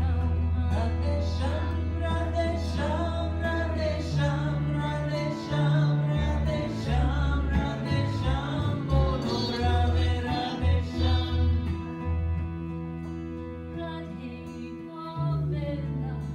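Live kirtan music: a woman singing a devotional chant over strummed acoustic guitar, harmonium, tabla and a low bass line, with sitar in the band.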